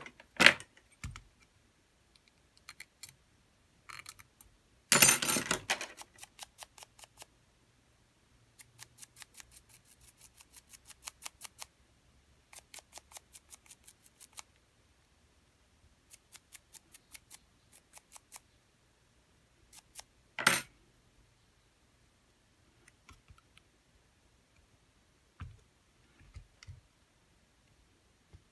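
Small hand tools working on a smartphone's bare plastic mid-frame: runs of light, rapid scratching ticks lasting a few seconds each, several ticks a second. A single sharp knock comes about twenty seconds in, and a few light taps follow near the end.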